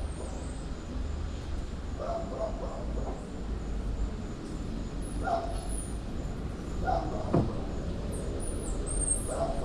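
Short animal calls, about four, each a couple of seconds apart, over a steady low rumble, with high thin chirps near the end and one sharp click.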